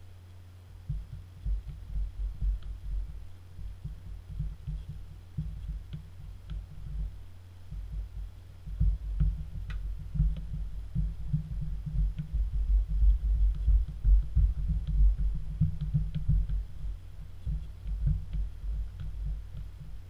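Irregular dull, low thumps as fingers press the soft silicone buttons of a 4x4 button pad, busier in the second half, over a steady low electrical hum, with a few faint clicks.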